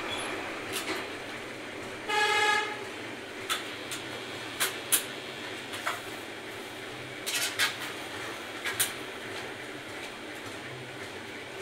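Sharp metallic clicks and taps from handling and screwing together aluminium window-frame profiles, some single and some in quick clusters, over a steady background noise. A vehicle horn gives one short toot about two seconds in, the loudest sound.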